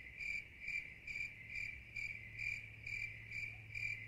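Crickets chirping steadily, about two and a half chirps a second. It is the stock 'crickets' effect that marks an awkward silence after a joke.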